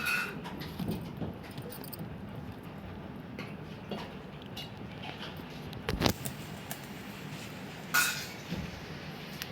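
Light metallic clinks and knocks, scattered and irregular, the loudest about six seconds in, with a short high chirp at the start and again about eight seconds in.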